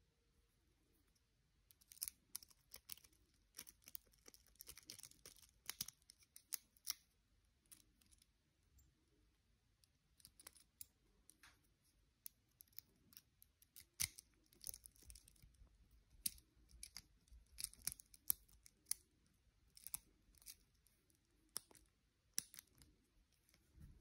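A Multipick Elite 6 Mountain rake working in the TSA 007 lock of a small metal combination padlock to rake it open: irregular metallic clicks and scratches of the pick against the pins, in quick clusters, starting about two seconds in.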